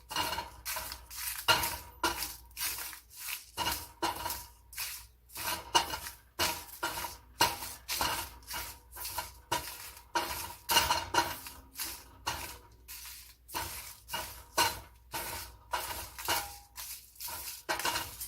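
A stirring utensil scraping and clinking against a pan in quick, regular strokes, about two or three a second, as crushed drumstick leaves, curry leaves and chilies are dry-roasted.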